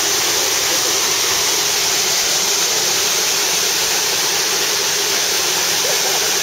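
Waterfall pouring over rock into a churning pool: a loud, steady rush of falling water.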